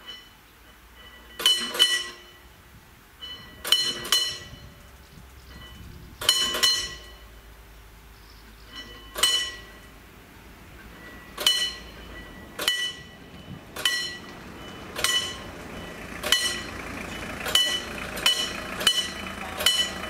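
Warning bell of a mechanically worked level-crossing barrier ringing in sharp metallic strikes, singly and in pairs at first and coming faster toward the end: the bell sounding as the barrier booms are wound down.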